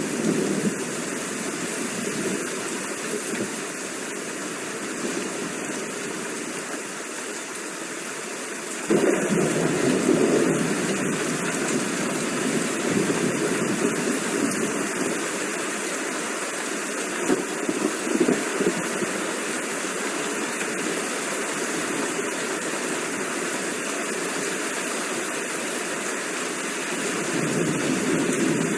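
Steady heavy rain, one continuous rushing hiss. About nine seconds in, a deeper rushing layer comes in suddenly, then swells and eases.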